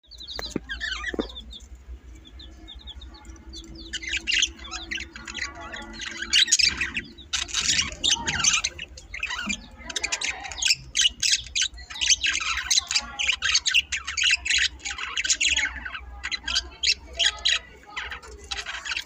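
Birds chirping and squawking: short, high-pitched calls, a few at first and then many rapid, overlapping calls from about four seconds in, over a steady low hum.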